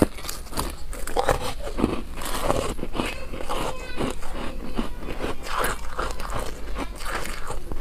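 A bite snapping a piece off a soft frozen foam-ice slab, loudest right at the start, followed by crunchy chewing of the icy mouthful with many small crackling crunches.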